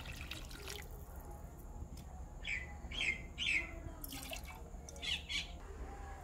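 Water poured from a small steel cup into a large aluminium pot of vegetables, splashing into the liquid in short bursts. A few short chirps with a falling pitch come in the middle.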